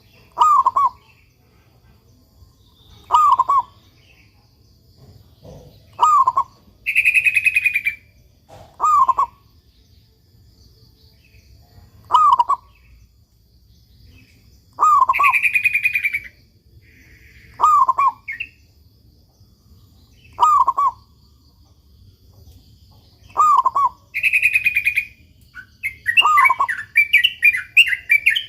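Zebra dove (perkutut) cooing in short, falling phrases about every three seconds. Other birds' higher chirps come in between, with a quick run of chirps near the end.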